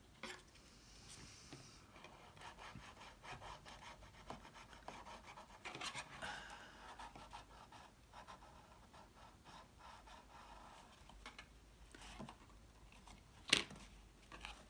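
Cardstock pieces being handled and pressed together during gluing: irregular rubbing and scratching of paper with small clicks, and one sharp tap about thirteen and a half seconds in.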